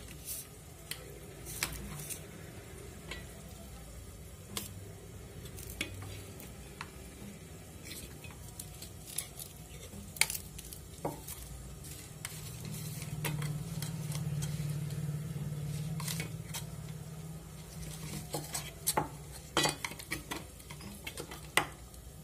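Metal spoon clinking and scraping against a steel plate as masala chicken is served onto it, in scattered sharp clicks. A low hum swells up and fades in the middle.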